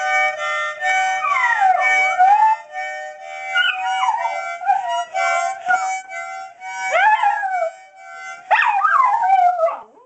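Harmonica playing held chords while a miniature pinscher mix dog howls along in several rising-and-falling howls. Near the end the harmonica stops and the dog gives one last long howl on its own.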